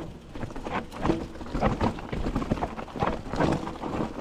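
A hiker's footsteps on a trail, a steady walking pace of about two steps a second.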